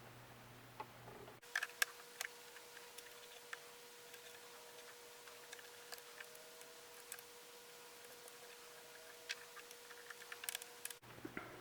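Faint scattered clicks and taps of small metal and plastic parts being handled on a Singer Heavy Duty sewing machine during reassembly, bunched together about a second and a half in and again near the end, over a faint steady hum.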